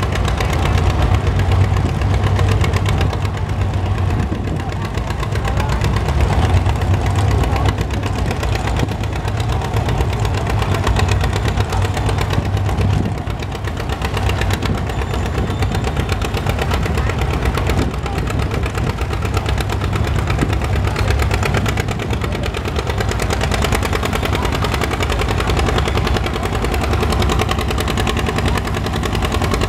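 John Deere two-cylinder tractor engine running hard under load as it drags a weight-transfer sled down the pulling track. The engine note is steady and unbroken, with a slight dip about halfway through.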